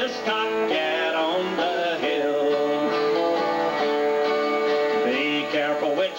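Live country-folk song on two strummed acoustic guitars and an electric guitar, with a melody line held in long notes through the middle.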